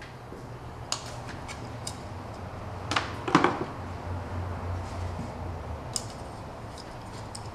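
Light clicks and knocks of a plastic oil filter housing cap and cartridge being handled, with a louder double clack about three seconds in, over a steady low hum.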